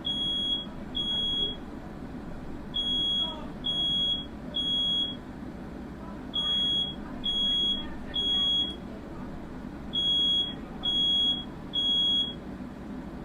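Smoke alarm sounding its three-beep pattern: groups of three short high beeps with a pause between groups, repeating about four times. This is the standard temporal-three evacuation signal, here set off by smoke from a firework fire in the room.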